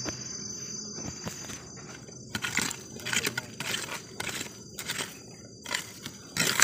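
A stick scraping and raking through gravelly soil in repeated short strokes, about two a second from about two seconds in. Insects buzz steadily in the background.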